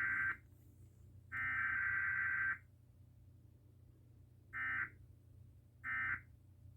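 Emergency Alert System SAME data bursts, modem-like two-tone warbles. Two bursts of about a second carry the message header, then three short bursts about a second apart send the end-of-message code, as in a required weekly test.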